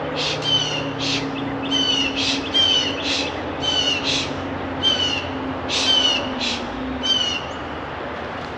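A bird yelling over and over: a dozen or so short, harsh, high calls, each sliding down in pitch, coming in uneven runs of two or three, over a faint steady low hum.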